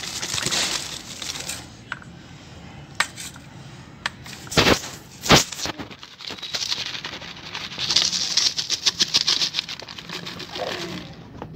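Rock dust poured from a plastic bottle into a steel bowl of cement, with a gritty rustling and scattered small clicks. Two sharp knocks about half a second apart come around five seconds in, and a quick patter of falling grains follows later.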